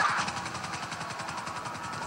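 Video game sound: a steady vehicle noise with a fast, even pulsing, and a brief louder sound at the very start.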